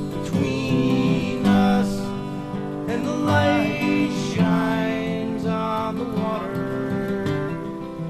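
Acoustic guitar strummed in a live song performance.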